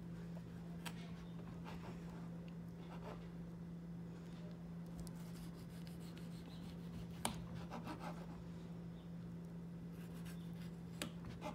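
Knife sawing through a soft rolled sandwich and clicking against a plastic cutting board: faint scraping with a few sharp clicks, the loudest about seven seconds in, over a steady low hum.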